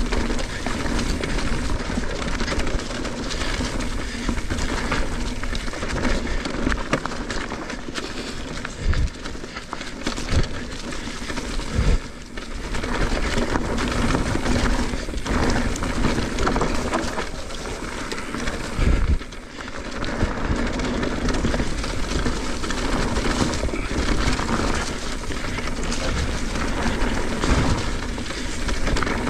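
Mountain bike riding fast down a dirt flow trail: steady rushing tyre and wind noise, with heavy thumps about 9, 12 and 19 seconds in from bumps or jump landings.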